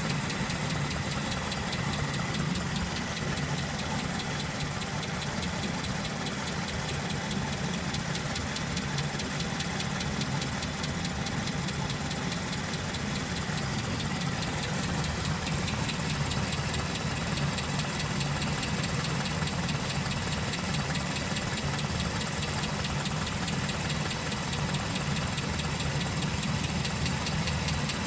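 1969 Land Rover Series IIA engine idling steadily, with a fast, regular ticking noise over the running.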